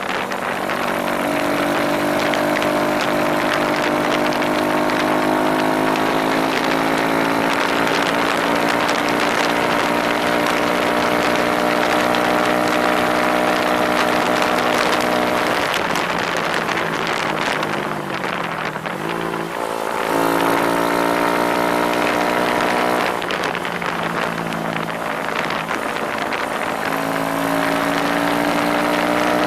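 Small two-wheeler's engine running under way at a steady pitch, then dropping in pitch about halfway through as it slows, and picking up again a couple of seconds later, with wind rushing past the microphone.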